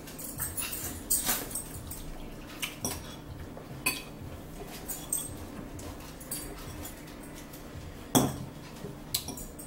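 Metal forks clinking and scraping against a bowl and plate while eating, in short irregular clinks with a sharper one about eight seconds in.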